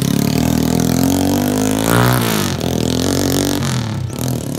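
Honda EX5 Class 1 motorcycle's single-cylinder four-stroke engine, bored out with a 58 mm block and fed by a TS125 carburettor, accelerating away hard on a test run. Its note climbs steeply about two seconds in, drops, then fades as the bike pulls off into the distance.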